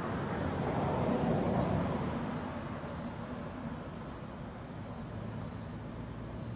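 Outdoor background of insects chirring steadily at a high pitch, under a low rumble that swells about a second in and fades away again.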